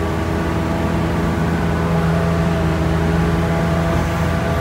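Sherp amphibious ATV's diesel engine running steadily at an even pitch while the vehicle moves across a duckweed-covered pond.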